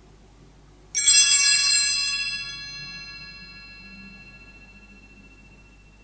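Sanctus bell rung once about a second in: a sudden bright jangle of many high ringing tones for about a second, then a slow fading ring-out.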